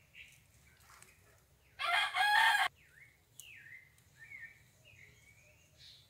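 A rooster crows once, short and loud, about two seconds in. Small birds chirp softly before and after it.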